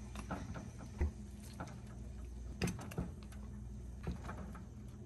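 Metal kitchen tongs clicking and knocking against a colander while lifting braised beef ribs out of cooked vegetables: a handful of light, scattered clicks over a steady low hum.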